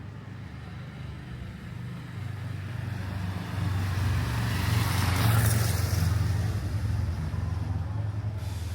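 A motor vehicle passing close by: its low engine rumble and road noise grow louder, are loudest about five seconds in, then fade away.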